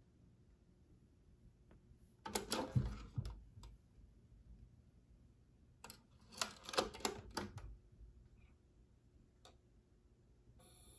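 Plastic clicks and clatter from a Sony CFD-E75 boombox's CD compartment being worked by hand, in two bursts: the lid opening, then the disc handled and the lid snapped shut. Near the end a faint steady whir starts as the player starts up.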